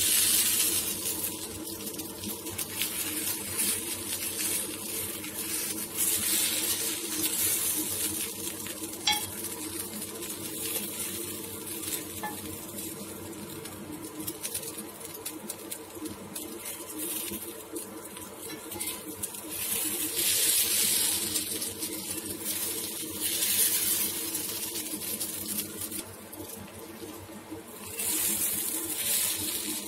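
Paniyaram batter balls sizzling in oil in a paniyaram pan, while a metal knife scrapes around the cups and flips them one by one. The sizzle swells louder in a few stretches, and a steady low hum runs underneath.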